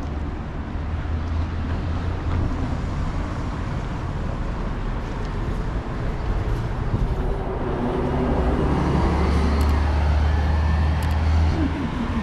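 City street traffic: a steady low rumble of passing vehicles. A vehicle's engine grows louder about two-thirds of the way through, then eases near the end.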